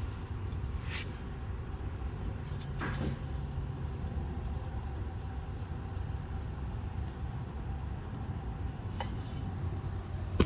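Steady low rumble of background noise, with a few faint clicks about 1, 3 and 9 seconds in.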